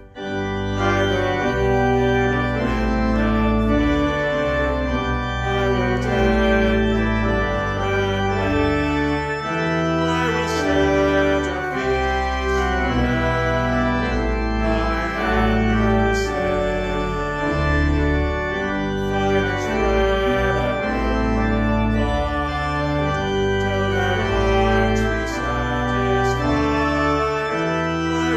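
Organ playing a hymn in held chords over a moving bass line, picking up again right after a brief break at the very start, with a man singing along.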